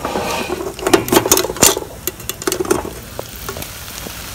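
Paella sizzling and crackling in a pot over the fire as its metal lid is lifted off with tongs, with a cluster of sharp clinks about a second in; the rice is crisping and charring on the bottom of the pot.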